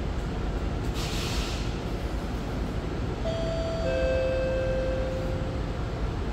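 Steady low rumble of an SMRT CT251 metro train, with a brief hiss about a second in. A little past halfway comes a two-note chime, a higher note then a lower one, each held for about two seconds.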